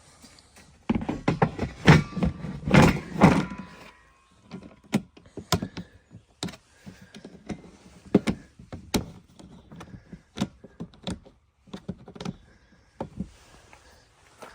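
Plastic propane tank cover on a camper being handled and slid back into place: a burst of clattering, scraping knocks, then scattered single knocks and thuds.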